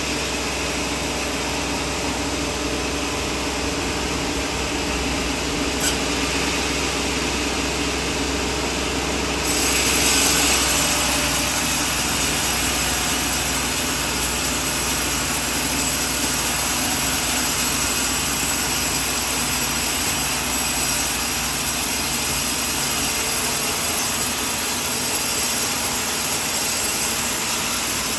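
Sawmill running and sawing coconut wood, a steady mechanical noise. About nine and a half seconds in it steps up louder and brighter and stays there, with a short click a few seconds before.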